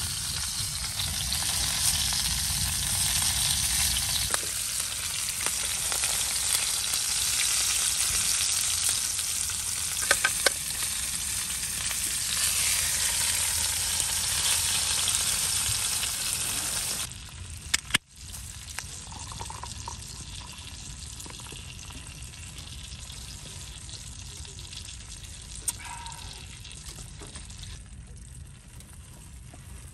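Lamb chops sizzling and frying in a pan, a steady loud hiss. About two-thirds of the way through it drops suddenly to a much quieter sizzle after a couple of sharp clicks.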